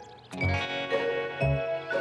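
Cartoon background music: sustained higher notes over a low bass note that sounds about once a second.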